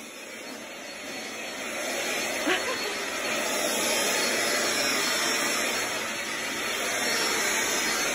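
Cordless stick vacuum cleaner running steadily across a hard floor, getting louder over the first two seconds, with one brief click about two and a half seconds in.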